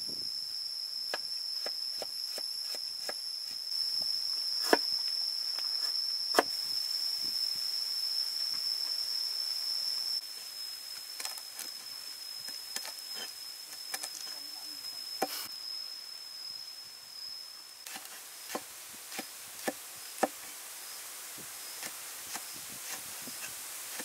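Cleaver chopping root, leaves and red chillies on a wooden board: irregular knocks, a few of them much louder strikes. A steady high insect whine runs beneath, dropping in level about ten seconds in and fading out near the end.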